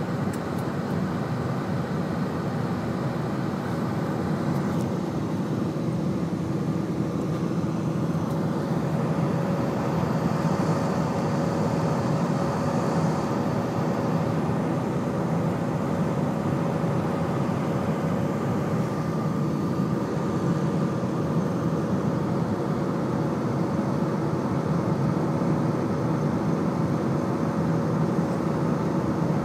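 Steady jet engine and airflow noise inside an airliner cabin, the turbofans at climb power. A few steady engine tones run under the noise.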